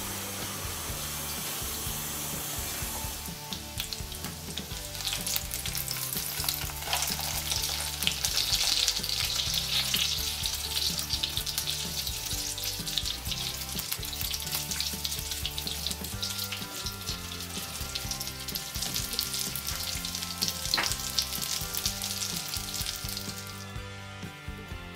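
Breaded chicken cutlets frying in vegetable oil in a frying pan: a steady sizzle full of small crackles that starts a few seconds in and stops shortly before the end.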